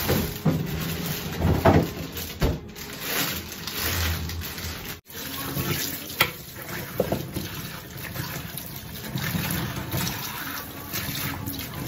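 Tap water running into a stainless-steel colander of kumquats in a sink while hands rub and turn the fruit, from about five seconds in. Before that, a few sharp knocks.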